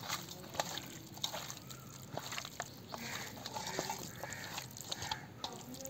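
Soft wet squelching of raw chicken pieces being mixed by hand in a marinade of spices, ginger-garlic paste, lemon juice and butter in a steel bowl, with scattered small clicks as pieces knock against the bowl.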